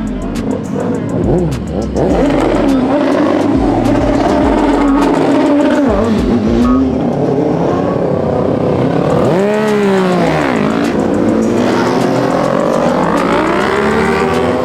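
Car engines revving hard, the pitch climbing and dropping again and again, louder from about two seconds in, with a sharp rev up and back down near the middle.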